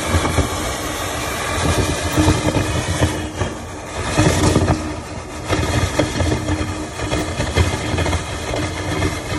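Water extraction equipment running steadily while its hose draws water out of a flooded sump pit. The motor noise is loud, with uneven swells in level.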